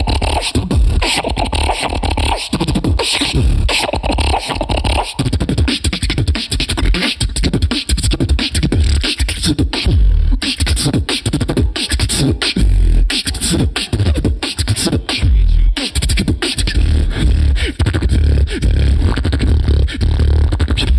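Solo human beatboxing into a handheld microphone: a fast, dense run of drum-like kick, snare and hi-hat sounds, with deep bass notes that grow heavier in the second half.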